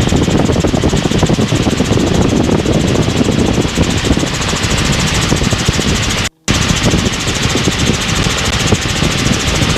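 Helicopter engine and rotor noise inside the cabin in flight, a steady, loud, dense drone with a fast even chop from the rotor blades. The sound cuts out for a split second about six seconds in, then resumes unchanged.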